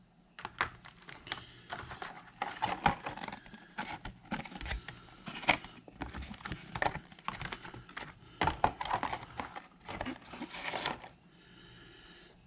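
Packaging being crinkled and rustled by hand, with irregular clicks and crackles while the USB Wi-Fi adapter is taken out of its box; the handling stops about a second before the end.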